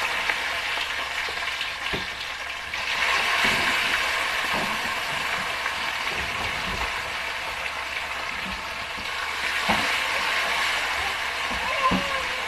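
Tilapia frying in hot cooking oil in a wok: a steady sizzle that gets louder about three seconds in and again near the end as more pieces go into the oil. A few light knocks sound over it.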